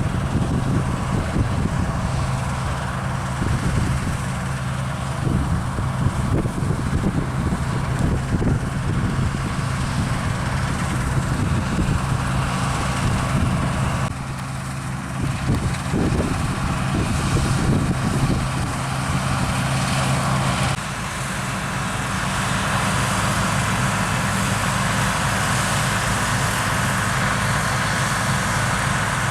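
Diesel engines of harvest machinery (combine harvesters and grain-carting tractors) running steadily at work. The engine note shifts abruptly about twenty seconds in, with less low hum and more hiss.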